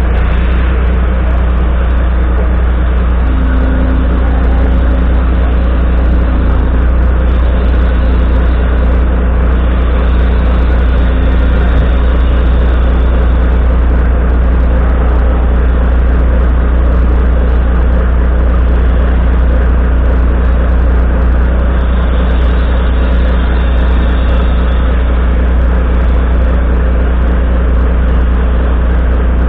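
Volvo FMX 440's 13-litre straight-six diesel idling steadily, heard close beside its vertical exhaust stack, with a deep, even low-pitched rumble.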